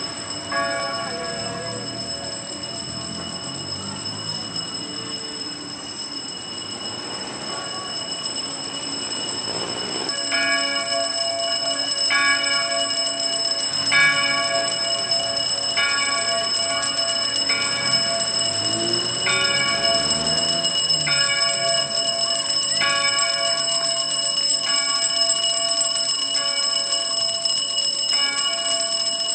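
Church bells ringing, their tones sustained and overlapping. From about ten seconds in they grow louder, with a fresh stroke roughly every two seconds.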